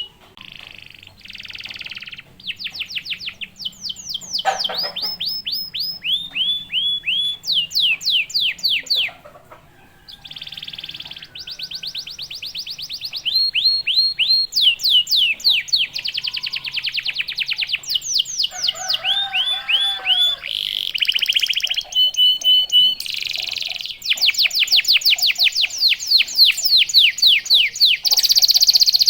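Domestic canary singing: rapid trills of repeated down-sweeping notes, phrase after phrase, with a short break about nine seconds in.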